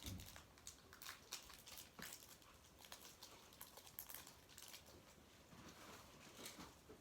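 Faint crinkling of plastic bags being handled, with scattered light clicks and rustles.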